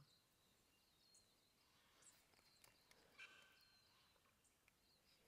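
Near silence: faint outdoor quiet with a few faint, short bird chirps, the clearest about three seconds in.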